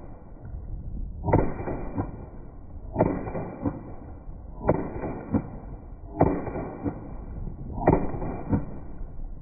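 Ruger Mark IV Lite .22 caliber pistol fired five times in slow, deliberate succession, about one and a half seconds apart. Each shot is a sharp crack followed by a fainter crack about half a second later.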